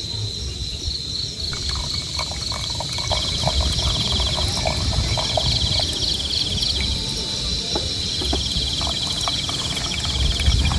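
Insects calling, crickets among them: a steady high-pitched shrill, joined about three seconds in by repeated pulsing trills just below it. A low rumble runs underneath, with scattered faint ticks.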